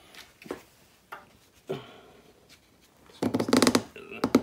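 Nylon webbing strap being handled and pulled through a buckle: a few soft rustles, then about three seconds in a loud rasping run of rapid clicks lasting about half a second as the strap is drawn tight, and another short one near the end.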